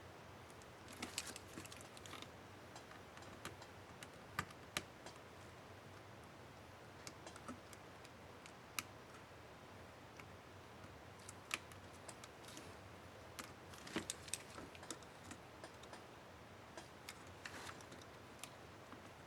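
Faint, scattered small plastic clicks and taps of a laptop keycap being handled and pressed into place on an Asus K55A keyboard, a few sharper than the rest.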